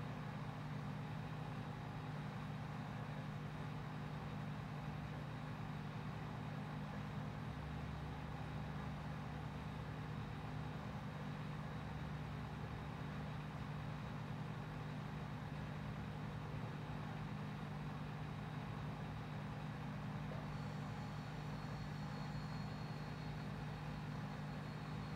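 Steady low machine hum with a faint high whine, unchanging throughout; a second faint high tone joins near the end.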